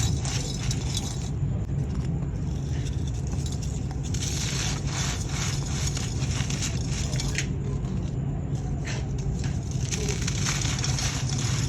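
Dry, grainy sand-cement and clay crumbling, a dense gritty crackle that comes in stretches with short lulls, over a steady low hum.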